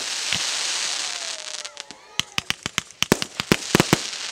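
Aerial fireworks going off: a bang, then about a second and a half of crackling as the burst breaks, then a quick run of sharp bangs, several a second.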